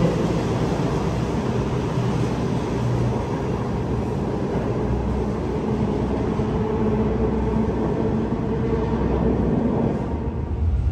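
Sydney Trains double-deck electric train departing from an underground platform, a steady rumble that carries on as the train runs off into the tunnel and eases slightly near the end.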